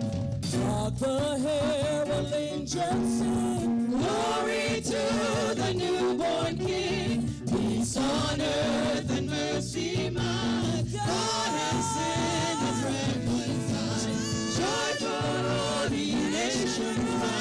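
Praise team singing gospel-style into microphones over a live band, a lead voice carrying the melody with the others singing along.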